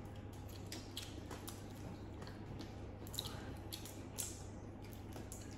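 Quiet eating sounds: shrimp shells cracked and peeled by hand and chewing, heard as scattered faint clicks and crackles over a low steady hum.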